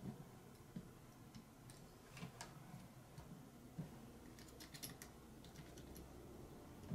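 Faint, light clicks and taps of small metal model-engine parts being handled and fitted, a few scattered ones with a quick run of several about two-thirds through.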